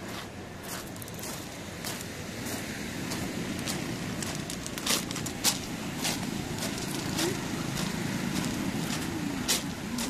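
Outdoor ambience: a steady wash of noise that grows slightly louder, with scattered sharp clicks and a faint voice near the end.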